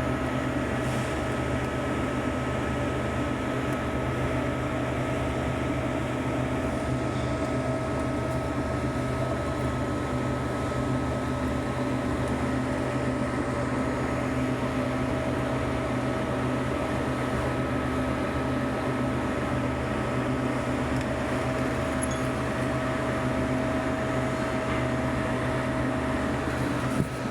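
A machine running steadily: a constant hum with a steady whine that does not change.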